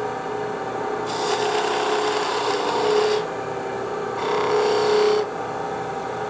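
Spindle gouge cutting wood spinning on a lathe while rolling a bead: two spells of shaving noise, the first about two seconds long, the second about one, over the lathe's steady hum.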